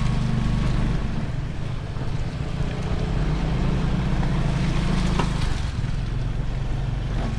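Motor scooter engine running steadily at low speed, heard from on the bike with road and wind noise. The engine note eases off briefly between one and two seconds in, and there is a short click about five seconds in.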